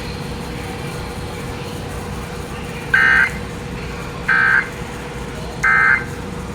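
Three short, buzzy bursts of SAME digital data tones from a NOAA Weather Radio broadcast: the end-of-message code that closes an Emergency Alert System warning. The bursts come about a second and a half apart over steady radio hiss.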